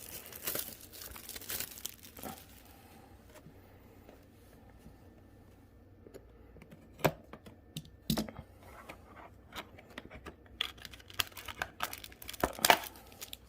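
Trading-card packaging being handled and opened: crinkling and tearing of foil and plastic wrapping. Rustling at first, a lull, two sharp taps about seven and eight seconds in, then more crinkling with a louder rip near the end.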